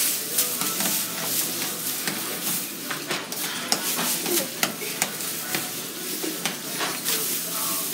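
Dry straw rustling and crackling as handfuls are pulled apart and shaken loose, with many short, sharp crackles.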